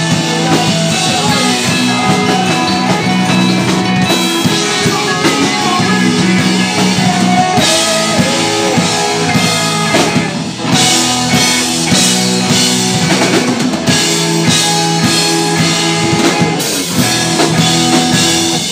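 Live rock band playing loud: electric guitars, a drum kit and a singer, dipping briefly about ten seconds in before carrying on.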